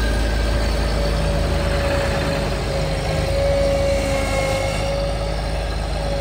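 Bobcat MT100 stand-on mini track loader's diesel engine running steadily as the machine drives on its tracks, with a steady high whine held over the engine.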